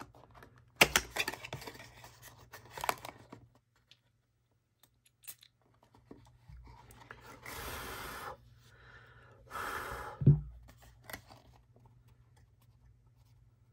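Cardboard perfume box handled and its seal peeled, crackling and tearing for a few seconds; then two hissing sprays from the perfume bottle's atomiser, the second ending in a thump as something is set down.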